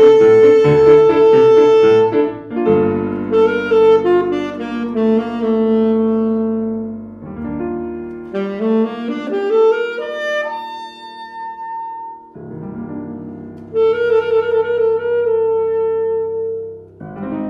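Alto saxophone playing a jazz melody of held and moving notes over grand piano chords. Partway through the accompaniment drops back, leaving a sparse passage with a single rising held note, before the piano comes back in fully.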